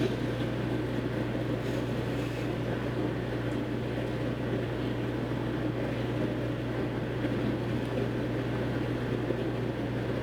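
Steady low hum with an even hiss of room background noise, unchanging throughout.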